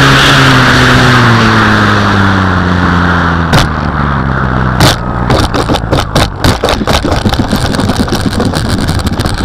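Onboard sound of an RC P-51 Mustang model: the motor and propeller wind down, falling steadily in pitch under the rush of air over the first three seconds or so. Then, about three and a half seconds in, comes a string of irregular knocks and rattles as the model touches down and bumps along the ground.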